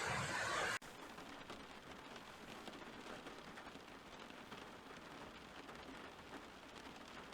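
Rain falling, with fine pattering drops. Under a second in, a louder rumbling rain sound cuts off suddenly and gives way to softer rain.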